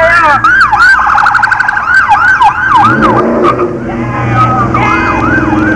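Police car siren in a rapid yelp, its pitch sweeping up and down about three times a second. A deeper steady drone joins about halfway through.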